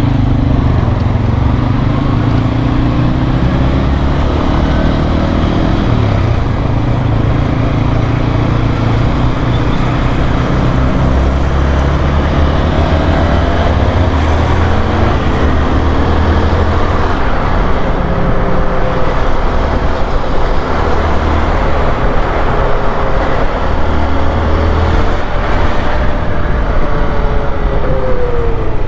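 Honda XRE 190's single-cylinder engine running as the motorcycle is ridden, its pitch rising and falling with throttle and gear changes over a steady rush of noise. Near the end the engine note falls as the bike slows.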